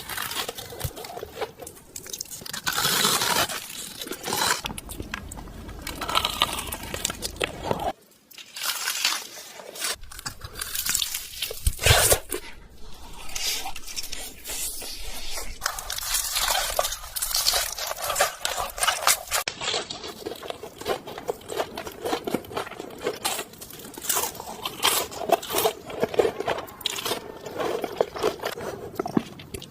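Close-miked crunchy eating: repeated bites and chewing of crisp food, with irregular cracks and crunches and a louder crack about twelve seconds in.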